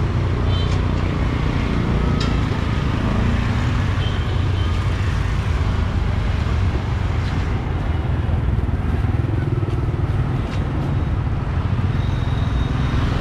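Steady road traffic running past, with engine rumble and a few faint voices in the background.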